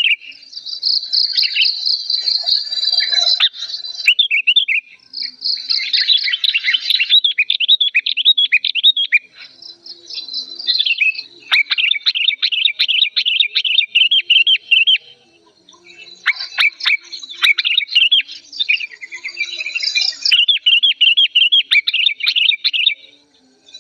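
Sooty-headed bulbul giving agitated, loud and clear chattering calls, fast runs of rising and falling notes broken by short pauses.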